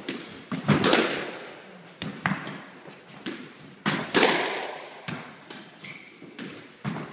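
A squash ball struck by a racket and cracking off the front wall, over and over, each hit ringing in the bare walled court. The loudest hits come about a second in and about four seconds in, and there is a short squeak just before six seconds.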